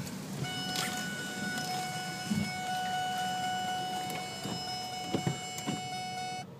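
A steady, unwavering electronic alarm tone, a single buzzing pitch, sounds over wind and street noise and cuts off suddenly near the end.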